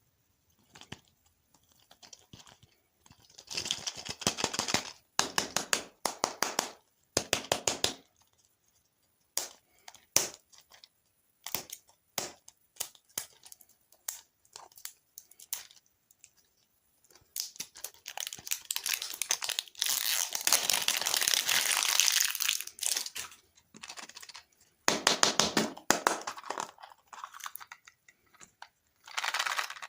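Plastic candy and dessert wrappers being torn open and crinkled, in irregular bursts of crackling. The longest stretch of crinkling runs for several seconds about two-thirds of the way through.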